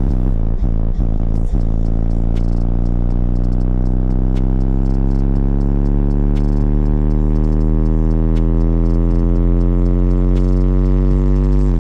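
A car's subwoofer system playing one long, loud bass drone whose pitch rises slowly, with scattered short rattling clicks over it.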